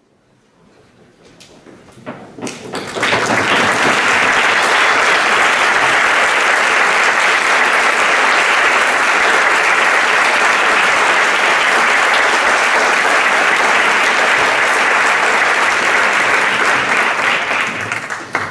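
Audience applauding: the clapping builds over the first three seconds, holds steady, and dies away near the end.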